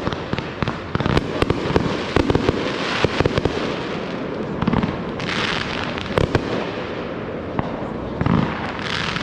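Fireworks going off in rapid succession: many sharp pops and bangs, thickest in the first few seconds, with hissing, crackling bursts about halfway through and again near the end.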